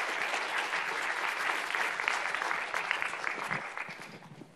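Audience applauding, many hands clapping at once, the clapping dying away near the end.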